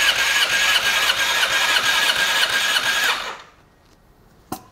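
Yamaha R6 RJ11 inline-four being spun over on its electric starter without firing, for a compression test: the starter whines with an even pulsing beat, then stops suddenly about three seconds in. A single sharp click follows near the end.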